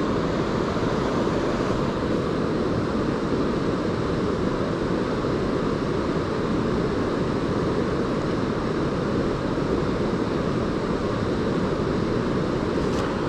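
A river's current rushing steadily, an even noise that holds at the same level throughout.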